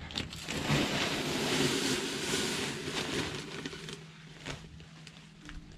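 Dried refried bean flakes pouring out of a large metal can into a plastic zip-top bag: a dry rushing rustle that eases off after about four seconds.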